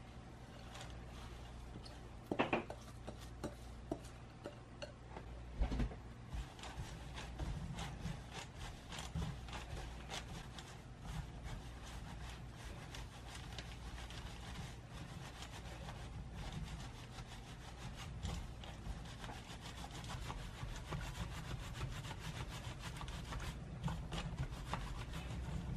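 Freshly microwaved green tea leaves being rolled and rubbed by hand against a woven bamboo sieve basket: a continuous crackly rustle and scrape of leaves on bamboo. Two knocks come in the first six seconds, the louder one about two and a half seconds in.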